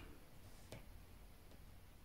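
Near silence: room tone, with one faint click about three quarters of a second in.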